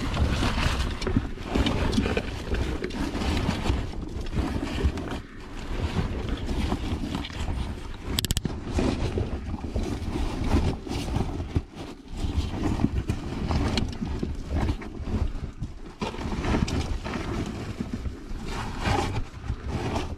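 Continuous scraping, rustling and bumping of a caver's body and clothing against rock while squeezing through a tight mine crawl, with heavy rubbing noise on the camera's microphone.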